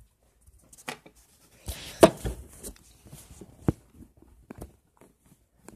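Handling noise from a phone being moved about: rustling and a series of sharp knocks and clicks, the loudest about two seconds in.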